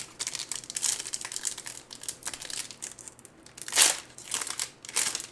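Foil trading-card pack wrapper crinkling as it is torn open and handled, a run of crackly rustles with the loudest bursts near the end.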